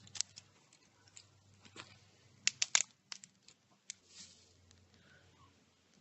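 Crunching and crackling handling noises with scattered sharp clicks, including a quick run of them about two and a half seconds in.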